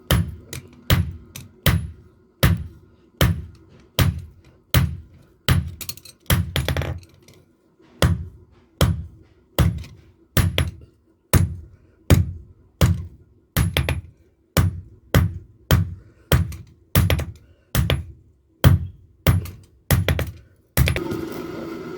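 Background music with a steady, thudding beat, about one thump every three-quarters of a second.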